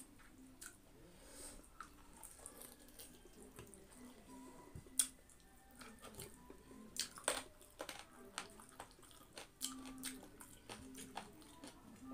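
Eating by hand: fingers working soft, wet food on a plate, with chewing and lip smacks. Many faint wet clicks come at an uneven pace, a few a little louder.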